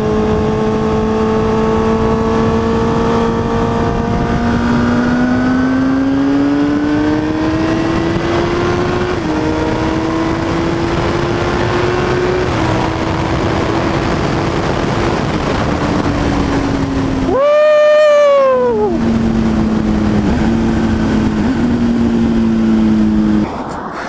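Kawasaki ZX-10R inline-four engine through a Two Brothers M-2 VALE cat-delete exhaust, heard from the moving bike over wind noise. Its note climbs in steps as it pulls through the gears, then slowly falls off as it eases down. About two-thirds through, a brief loud whine rises and falls.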